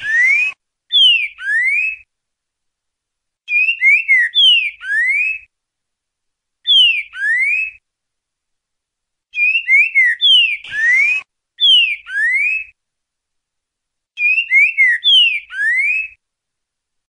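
Green-winged saltator (trinca-ferro) singing the boca-mole 'ti-boi' song: short phrases of loud, clear whistled notes that slide down and then up, each phrase one to two seconds long, repeated every two to three seconds.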